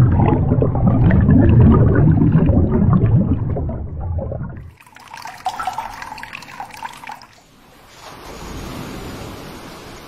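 Metal mug plunged into fast-flowing glacial meltwater, water rushing and gurgling into it. After about four and a half seconds this gives way to lighter trickling and splashing as the full mug is lifted out dripping. A steady rushing hiss comes in near the end.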